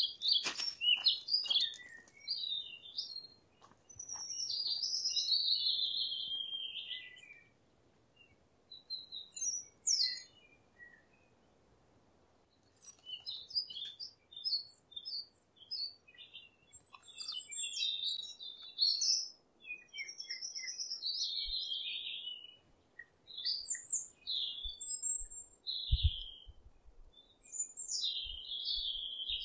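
Small songbirds chirping and singing in quick twittering phrases, with a pause of a few seconds near the middle. A few sharp clicks sound right at the start.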